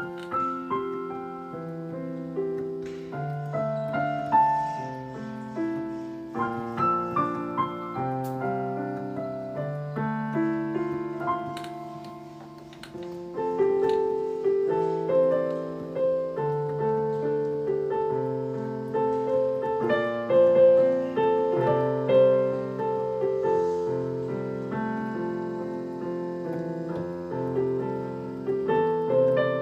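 Background piano music: a melody of struck notes over chords, growing fuller and louder about halfway through.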